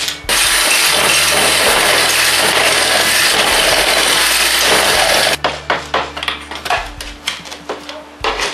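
Cordless drill running hard against the broken screw in an aluminium windscreen frame, a loud steady grinding that stops suddenly about five seconds in. Then a run of short scrapes and clicks as a small hand tool picks at the frame.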